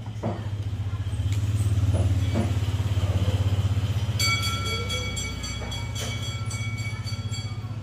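Low, steady engine-like rumble that swells and then eases, with a few sharp clicks early on. A high-pitched whine joins about four seconds in and stops near the end.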